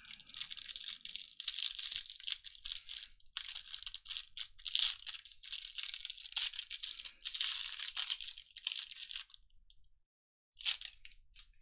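Clear plastic wrapper of a Mosaic trading-card hanger pack being torn open and crinkled by hand: a dense, crackling rustle that runs until about nine and a half seconds in, stops briefly, then gives one more short crinkle near the end.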